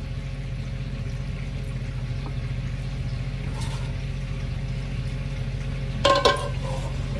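Water sloshing and dripping as washed raw chicken pieces are handled in a pot of water, over a steady low hum. A few clicks and knocks about six seconds in.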